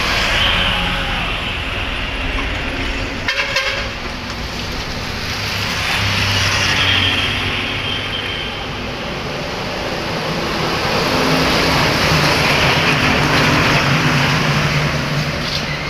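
Motorbikes and cars passing on a road, a continuous traffic noise that swells and fades as each vehicle goes by, loudest about two thirds of the way through. A short clatter of sharp clicks sounds about three seconds in.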